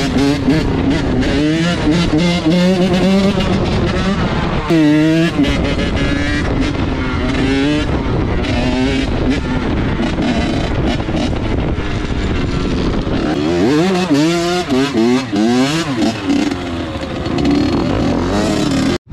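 Off-road vehicle engines revving, their pitch rising and falling again and again, strongest in a cluster of quick revs about two-thirds of the way through. The sound cuts off suddenly just before the end.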